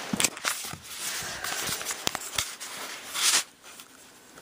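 Camera handling noise: rubbing and several sharp clicks as the camera is set down and moved, with a louder rustle about three seconds in.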